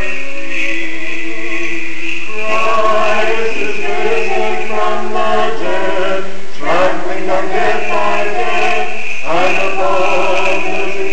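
Orthodox church choir singing a cappella chant in several parts. The singing grows fuller about two seconds in, and new phrases begin around six and a half and nine seconds in.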